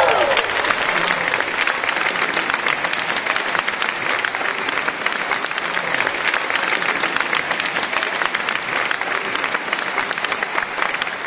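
Audience applauding steadily as the last sung notes of a live gospel song die away; the applause cuts off abruptly at the end.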